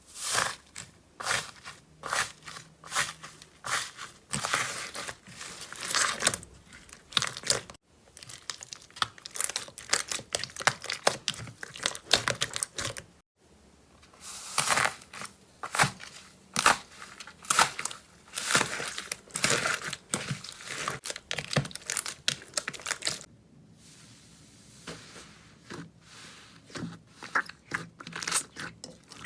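Slime being squeezed, stretched and pulled apart close to the microphone, giving crackling, popping and tearing sounds in quick, irregular bursts. There are brief breaks about 8 and 13 seconds in.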